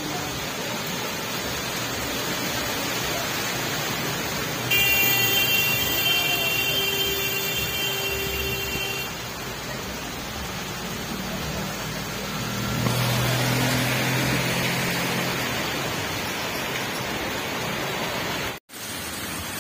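Heavy rain falls steadily on a flooded street as vehicles drive through the water. About five seconds in, a louder passage with high-pitched tones comes in. From about eleven seconds, a vehicle's engine passes and its wheels splash through the floodwater. The sound cuts out for a moment near the end.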